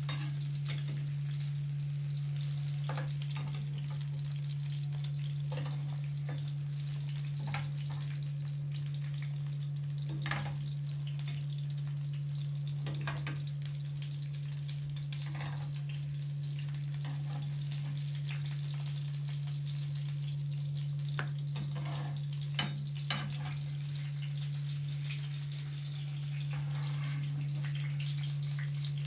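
Onion slices sizzling in a ridged grill pan on a gas stove, with scattered clicks and scrapes of a metal spoon lifting them onto a glass plate, over a steady low hum.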